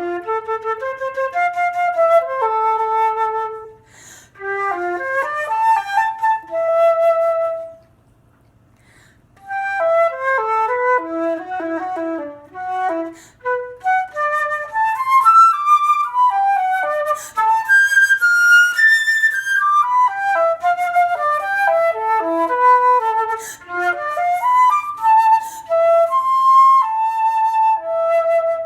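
Solo flute playing fast, agile melodic phrases that leap across the range, with brief pauses for breath between phrases and a longer rest about eight seconds in.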